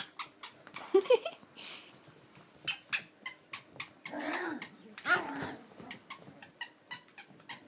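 Puppies play-fighting: short high yips and small growls, the longest growls between about four and five and a half seconds in, over a scatter of light clicks and taps.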